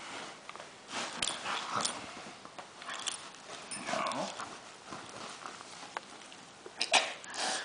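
Dog making short play noises, huffs and low grumbles, while bedding rustles as she rolls and is wrestled on the bed; a louder burst comes near the end.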